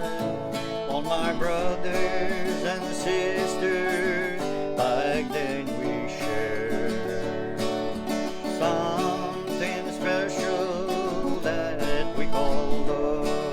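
Country-style music with acoustic guitar and a wavering lead melody.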